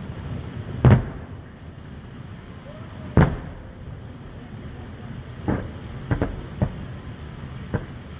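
Fireworks bursting overhead: two loud booms a little over two seconds apart, then a run of five smaller bangs in the second half, over a steady low rumble.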